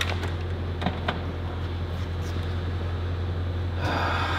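A 7.3-litre V8 diesel truck idling in the background: a steady low hum. A few light clicks come about a second in.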